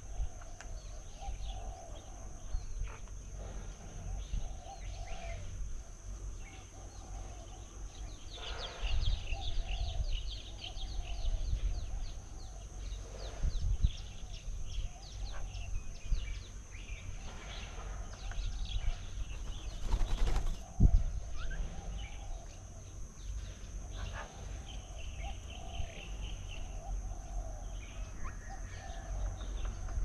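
Outdoor ambience of small birds chirping and calling on and off, thickest in a flurry about a third of the way through, over a low rumble and a steady high tone. A single sharp thump, the loudest sound, comes about two-thirds of the way in.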